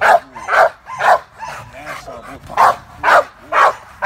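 A dog barking rapidly, about two barks a second, with a short quieter spell of lower sounds in the middle: excited barking while it is held back by the collar from a decoy in a bite suit during bite-work training.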